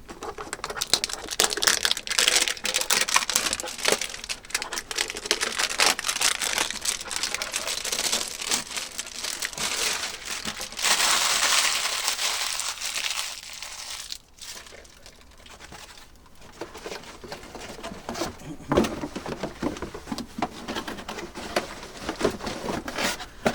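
Packaging crinkling and rustling as it is handled, dense and crackly for most of the first half, then quieter with a few scattered knocks.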